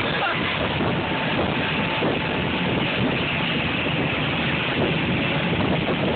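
Motorboat under way at speed: a steady, loud rush of engine and churning wake, with wind buffeting the microphone.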